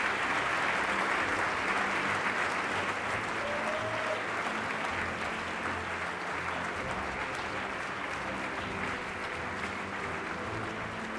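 Audience applauding at the end of a speech, the clapping slowly fading.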